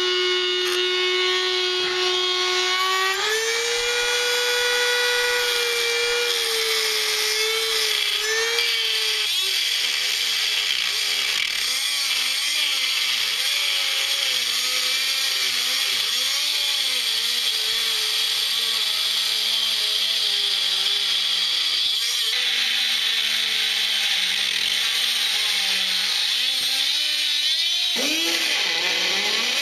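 Dremel rotary tool with a cutoff wheel cutting a slot in a Jeep Cherokee XJ's steel frame. It gives a steady high whine that steps up in pitch about three seconds in, then wavers and drops lower while it cuts, over a constant grinding hiss.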